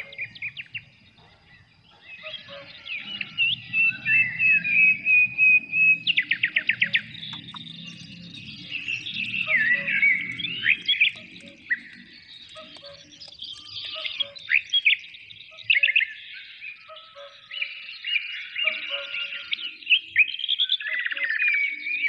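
Several songbirds calling in forest, a busy mix of whistled notes, chirps and fast trills overlapping one another. A faint low rumble runs under the first half.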